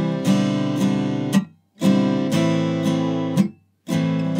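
Steel-string acoustic guitar strummed in a percussive pattern. Each chord rings for about a second and a half with sharp strokes inside it, then is damped to silence before the next chord starts.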